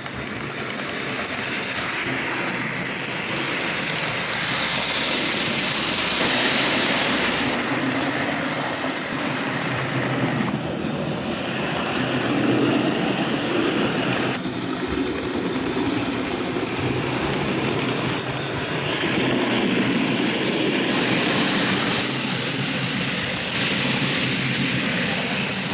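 Train running on rails: a steady rushing clatter whose tone shifts every few seconds.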